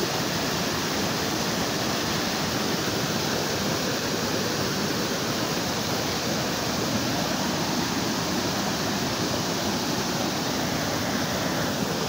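Small waterfall pouring over a rock ledge into a pool: a steady rush of water.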